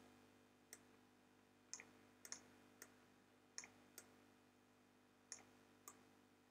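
Faint, sharp computer mouse clicks at an irregular pace, about ten in all, some in quick press-and-release pairs, as items are clicked and dragged about the screen. A faint steady hum lies underneath.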